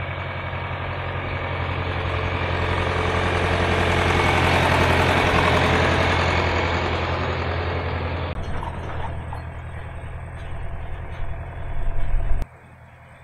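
A vehicle engine running steadily while under way on the road, with road and wind noise that swells to its loudest about halfway through and then eases off. The sound changes suddenly twice in the second half.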